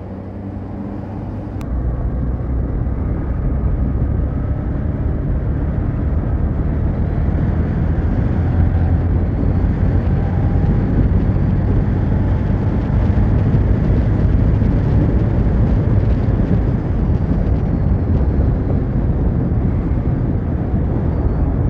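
Honda SP125's single-cylinder four-stroke engine running steadily at road speed, with wind rush on the microphone. It gets louder about two seconds in as the bike picks up speed.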